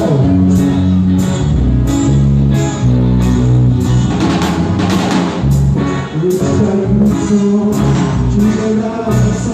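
A band playing: a drum kit keeping a steady beat of about two hits a second, under guitar and bass.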